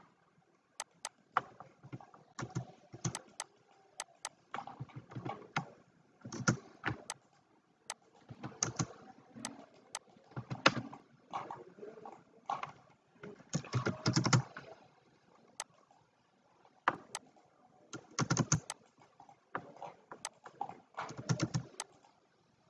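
Computer keyboard and mouse in use: scattered single clicks and keystrokes, with several short bursts of rapid typing.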